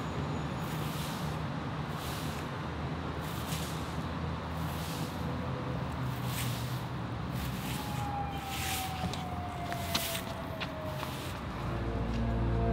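Steady distant traffic rumble with a run of soft swishing strokes about twice a second. A falling whine passes about eight seconds in, and soft music comes in near the end.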